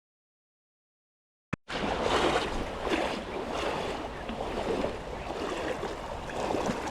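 Silence for the first second and a half, then the steady rush of a mountain trout stream's flowing water.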